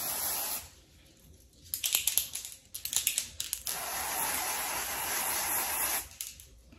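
Aerosol spray can hissing in two long bursts, the first stopping about half a second in and the second running from about four seconds in to about six, with a run of sharp clicks and rattles between them.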